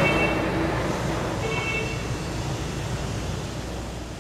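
Outdoor street noise with a low vehicle rumble, slowly fading away.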